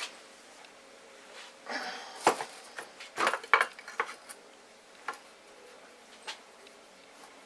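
Hard plastic and metal chainsaw parts being handled and fitted back together: scattered clicks, knocks and short rattles, busiest in the first half, then a few single clicks.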